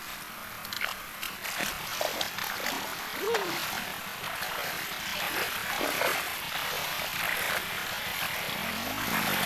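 Shallow rocky stream rushing, with wading splashes and a few sharp knocks in the first couple of seconds.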